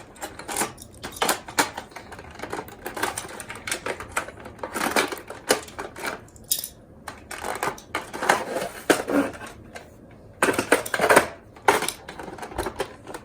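Small die-cast toy cars being handled, with irregular clicks and clattering knocks throughout.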